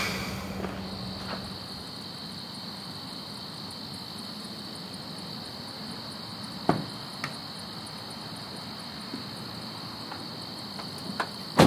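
Steady high chirring of crickets at night, broken by a few sharp clicks or knocks: one about two-thirds of the way through and two close together near the end.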